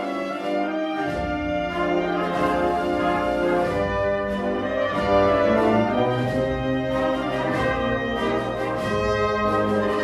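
Andalusian Holy Week processional march played by a wind band, the brass carrying the melody over scattered drum strokes. The low brass comes in about a second in.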